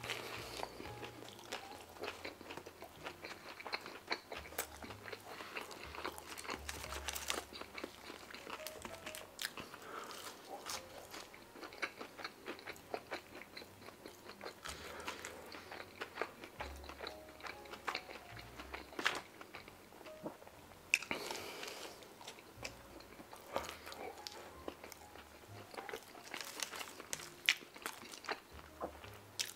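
A person eating: biting into and chewing a slider sandwich on a soft bun, with many small mouth clicks and crunches throughout.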